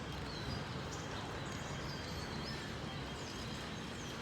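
Steady background noise with a few faint, short high chirps.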